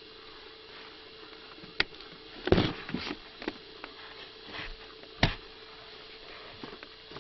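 A few sharp clicks and knocks at irregular intervals, the loudest about two and a half seconds in, over a faint steady hum.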